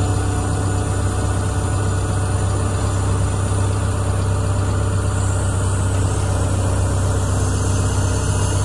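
Excavator's diesel engine running steadily, a constant low hum with no change in speed.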